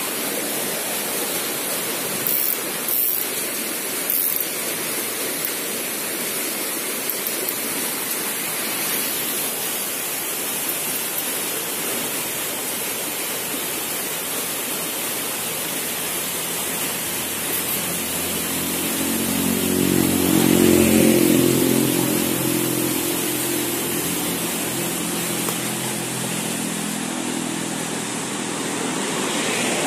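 Steady rush of flowing river water. A passing vehicle's engine swells and fades about two-thirds of the way through.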